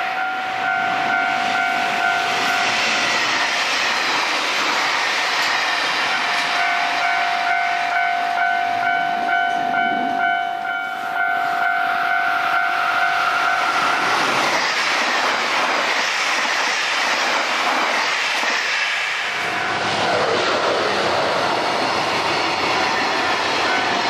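A train passing over a level crossing, its running noise steady throughout. The crossing's warning bell rings as a quickly repeated tone, drops out briefly a few seconds in, stops about fourteen seconds in, and starts again near the end.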